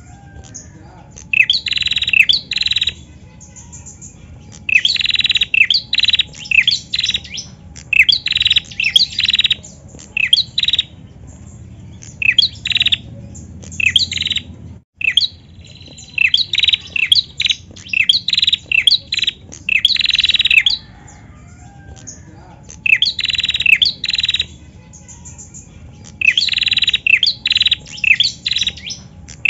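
Female prinia (prenjak) calling: repeated bouts of rapid, sharp high chirps, each bout lasting a second or two with short pauses between.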